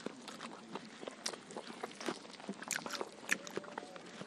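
Quiet close-up eating sounds: chewing and lip smacking on chicken biryani and chicken, with many small scattered clicks and ticks.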